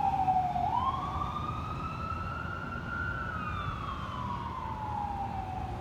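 Fire engine siren wailing: the pitch falls, climbs back up, then slowly falls again, over the low rumble of the truck.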